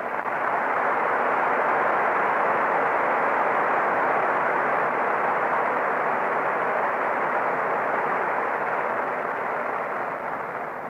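Audience applauding, swelling in the first second and dying away near the end. It sounds muffled, with little treble.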